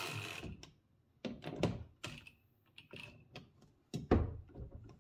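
A cordless impact driver runs briefly and stops about half a second in. Then come a series of sharp clicks and knocks as a metal gas-strut bracket and its screws are handled on a hard plastic case lid.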